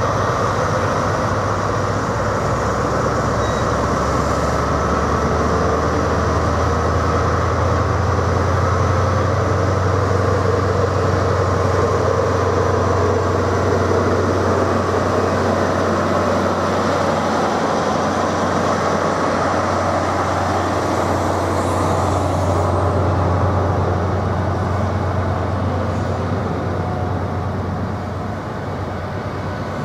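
Class 43 HST power car's diesel engine running under power with a steady low drone as the train pulls away, its coaches then rolling past on the rails.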